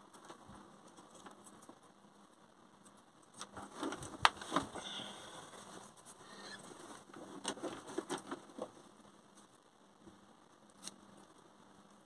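Hands handling plastic wire connectors and a paper wire label: clicks and crinkling rustle in two spells, around four seconds in and again around eight seconds in, with a single sharp click near the end.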